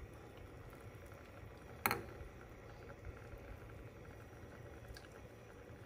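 Glass pot of water and diced aloe vera at a rolling boil, a faint steady bubbling, while foam is skimmed off with a plastic ladle. One sharp knock about two seconds in, the ladle striking the pot, and a fainter tick near the end.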